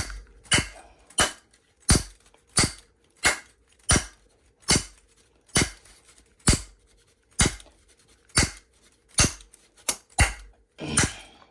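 A piece of wood striking the top of a locked Disecu padlock over and over, sharp knocks about one and a half a second. It is a whack test to see whether the lock will fail under impact.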